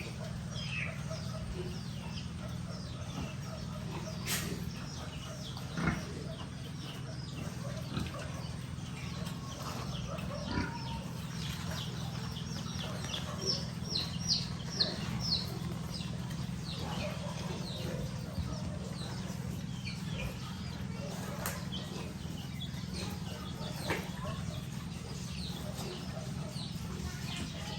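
Farmyard animal sounds: scattered short high chirps and clicks over a steady low hum, with a quick run of chirps about halfway through.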